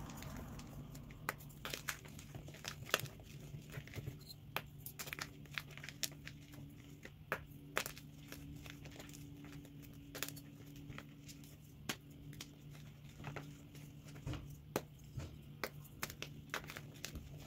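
Blocks of dyed SPRI gym chalk being squeezed and crumbled by hand, giving irregular crunches and sharp snaps as pieces break. A faint steady low hum runs underneath.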